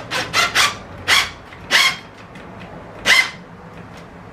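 A dog barking: about six short barks, three in quick succession at first, then three more spaced out.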